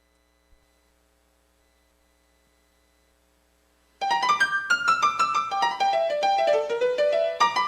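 Near silence with a faint hum, then about four seconds in keyboard music starts, a melody of quick notes stepping downward.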